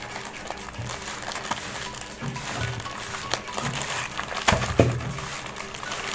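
A plastic courier mailer bag crinkling and rustling as it is pulled and torn open by hand, with a few sharp crackles about three and a half and four and a half seconds in. Background music runs underneath.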